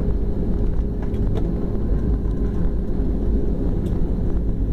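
Jet airliner's cabin noise during the landing rollout: a steady low rumble of engines and wheels on the runway with a steady hum, spoilers deployed just after touchdown.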